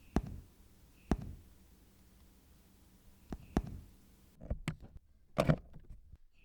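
A series of sharp knocks and clicks at irregular intervals, two of them close together about three and a half seconds in, over a faint low hum.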